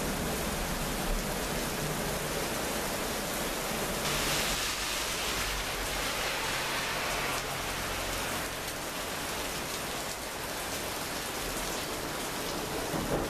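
Heavy thunderstorm rain pouring steadily, growing stronger for a few seconds from about four seconds in.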